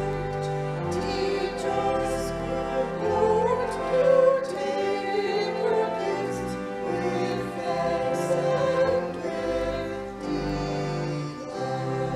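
Three women singing together, accompanied by a church organ holding steady low notes.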